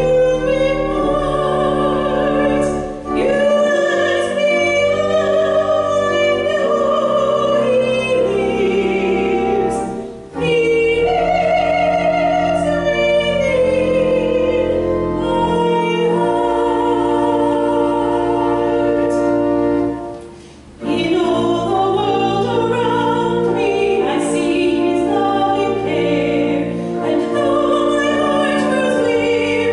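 A woman singing a hymn with vibrato to pipe organ accompaniment, the notes long and held. The sound drops briefly between phrases about 10 seconds in and again about 20 seconds in.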